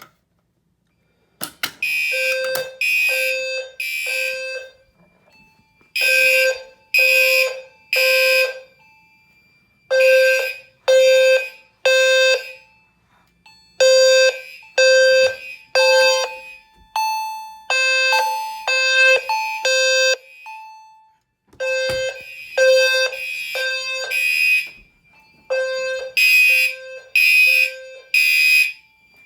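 Fire alarm system in alarm after a Firelite BG-12 pull station is pulled. Gentex Commander horns and a System Sensor HW-LF low-frequency sounder blast in the temporal-3 evacuation pattern, three blasts about a second apart and then a pause, starting about a second and a half in. In the middle, a chime tone also rings between the blasts.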